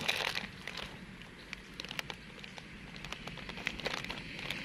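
Thin plastic bag rustling and crinkling in scattered light crackles as hands and a small monkey rummage in it.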